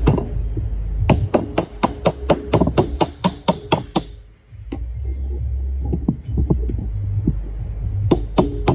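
Rapid hammer taps, about four a second, driving a wedge to pop the stator out of a CYC X1 Pro Gen 2 e-bike mid-drive motor's housing. A pause with a few lighter taps follows, then another quick run of strikes near the end.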